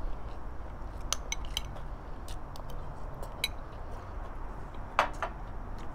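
Chopsticks clicking against a small glass bowl while eating: a few light, scattered clinks, with a louder one about five seconds in.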